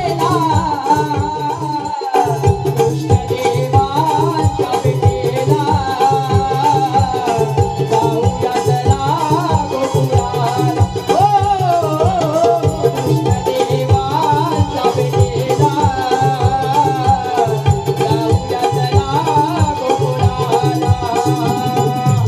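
A young shahir singing a Konkan Naman folk song, the melody wavering and ornamented, over a steady, fast hand-drum rhythm.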